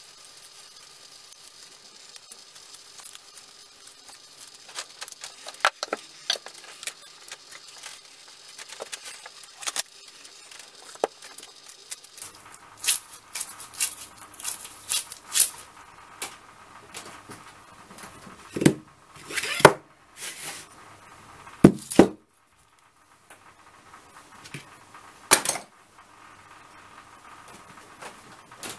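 Handling sounds of a small hatchet on a work table: scattered light clicks and clinks at first, then short scraping rubs and a few louder knocks and thumps as it is moved and laid down.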